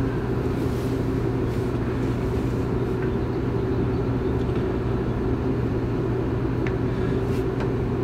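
Contoure RV-200S-CON convection microwave running on its popcorn cycle: a steady, even hum.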